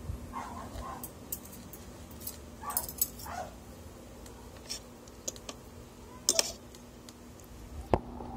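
Metal spoon and fork clinking and scraping against a plate and bowl during a meal, with a cat meowing a few short times in the first half.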